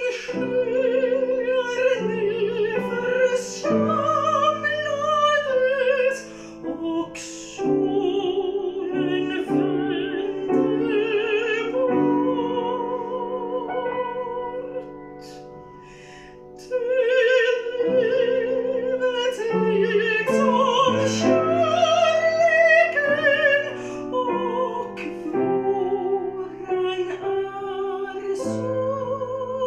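Classical soprano singing a Swedish folk-style art song with vibrato, accompanied by a grand piano. The music softens for a few seconds in the middle before the voice returns at full strength.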